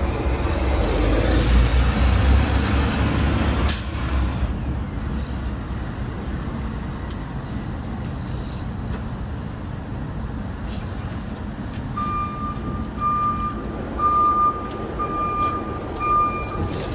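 City street traffic: a heavy vehicle rumbles for the first few seconds, with a sharp burst about four seconds in. From about twelve seconds, a truck's reversing alarm beeps about once a second.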